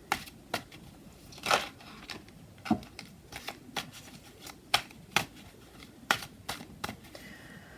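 Tarot cards being shuffled and handled: a string of crisp, uneven card snaps and clicks, with a brushing swish about one and a half seconds in.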